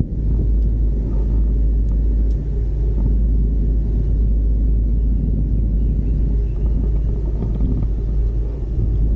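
Steady low rumble heard from inside an aerial ropeway gondola as it travels along the cable.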